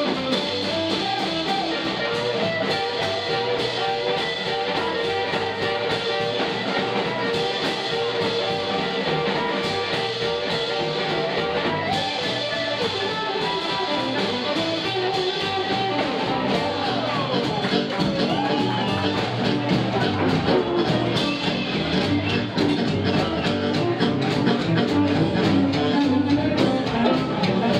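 Live blues band playing an instrumental passage: electric guitar leading over drums and upright double bass, with the blues harmonica coming in and the band getting louder near the end.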